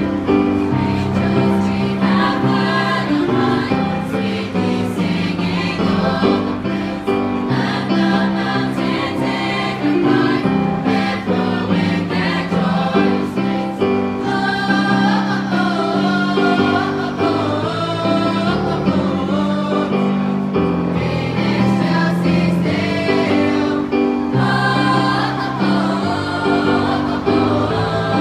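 A choir singing a Christmas carol, several voices together holding and moving between sustained notes.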